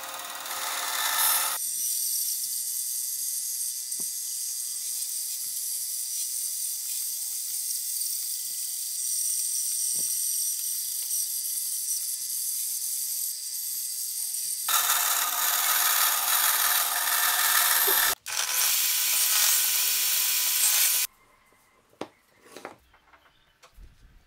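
Band saw cutting a circle out of plywood: a steady, hissing rasp of the blade through the wood over a faint steady motor hum. The cutting grows louder and coarser about 15 seconds in, drops out for an instant near 18 seconds, and stops suddenly about 21 seconds in, leaving a few faint taps.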